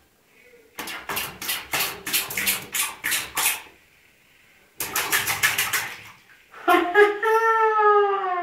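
A hand patting and splashing bath water in two quick rhythmic runs, about four slaps a second. Near the end a six-month-old baby lets out one long vocal call, its pitch rising and then falling.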